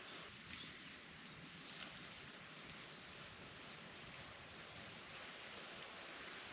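Faint steady hiss of light rain, with a few short bird chirps and a single drip-like tap about two seconds in.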